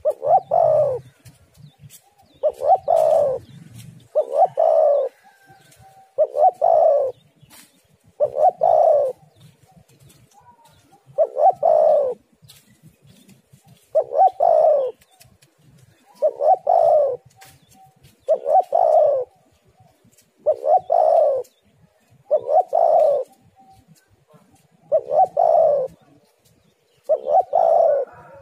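Spotted dove (tekukur) cooing: the same short phrase of a few notes, repeated about every two seconds, over and over.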